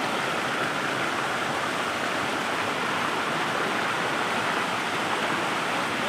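Steady rush of a fast-flowing forest stream.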